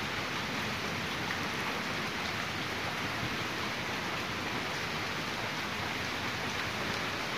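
Steady rain falling, an even hiss that holds level without let-up.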